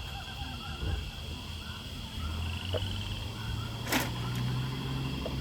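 Outdoor ambience with a low engine hum that grows louder about two seconds in, over a steady chorus of short repeated chirping animal calls. One sharp click about four seconds in.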